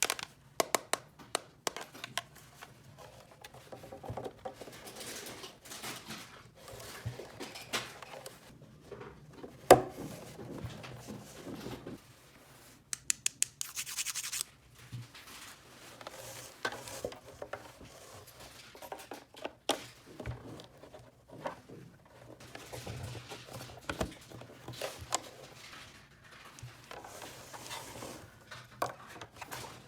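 Small plastic toy pieces being handled, tapped and clicked together, with scratching and rubbing between the clicks. There is one sharper click about ten seconds in and a short rustle near the middle.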